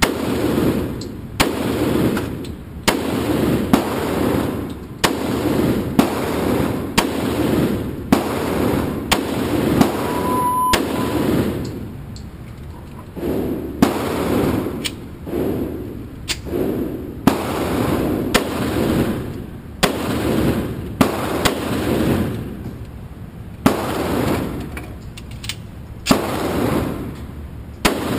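Handgun shots fired one after another, about one a second, each followed by a booming echo off the walls of an indoor range. A short beep sounds about ten seconds in.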